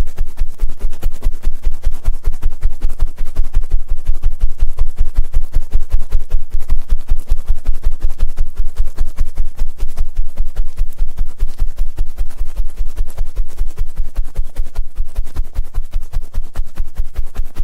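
Ear-cleaning ASMR: a tool rubbing and scratching inside a microphone's ear in rapid, even strokes, about five a second. Each stroke gives a deep thud with a scratchy hiss above.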